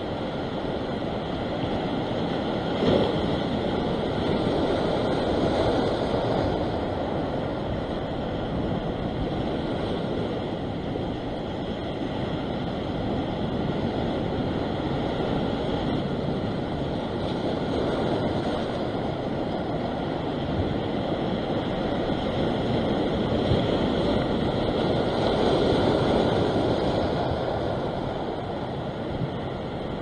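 Ocean surf breaking and washing across a flat rock shelf, a steady rush of water that swells louder a few times as bigger waves come in.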